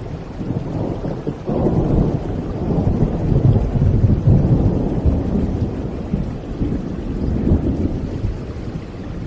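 A long rolling rumble of thunder swells up about a second and a half in and slowly fades away over a steady hiss of rain.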